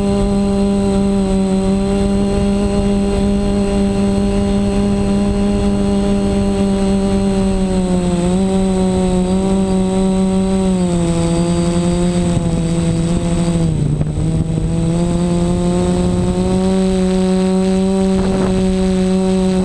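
Multirotor drone's brushless motors and propellers (DJI 920KV motors on a Reptile Aphid 450 frame) whining steadily, heard from on board with a low rush of prop wash. The pitch sags a few times as the throttle eases, deepest about two-thirds of the way through, then climbs back.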